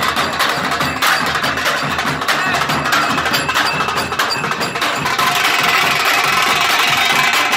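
Nashik dhol ensemble: large steel-shelled dhols and a tasha beaten with sticks together, playing a loud, dense, driving beat.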